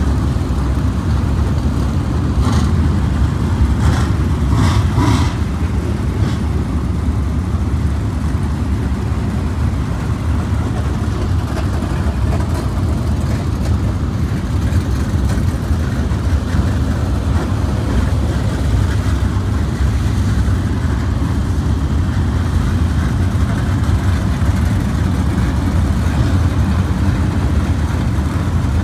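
Dirt-track race car engines running steadily on the speedway, heard as a continuous low rumble. A few short crackles sound about three to six seconds in.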